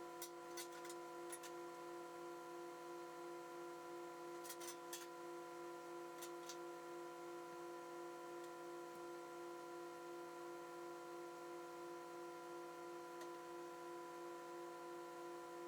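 A steady electrical hum made of several fixed tones, with a few light ticks in the first few seconds.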